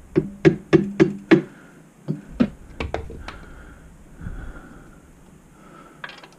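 Quick sharp metal knocks, about five in a second and a half, then a few more after a short pause, as the motorcycle mainstand and its pivot bolt are tapped and jiggled into line in the frame's lugs.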